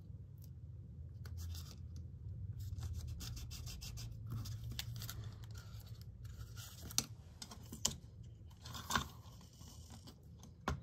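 Masking tape being pressed down and handled: faint scratching and crinkling of tape on a paper-backed sheet, with a few sharper clicks in the second half.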